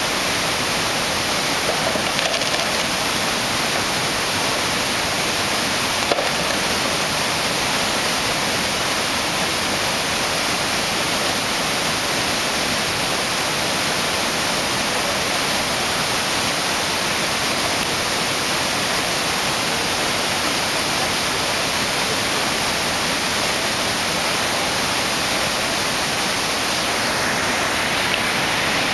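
Steady rushing roar of the flood-swollen Ottauquechee River pouring over a road and through the trees.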